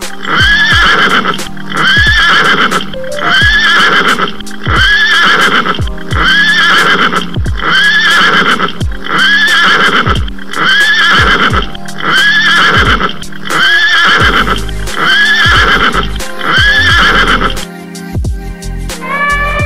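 Music with a short horse-whinny sound repeated in a strict loop, about once every second and a quarter. The loop breaks off shortly before the end.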